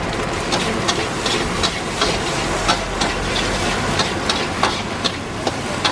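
A run of sharp clacks, about two to three a second, over a steady hiss.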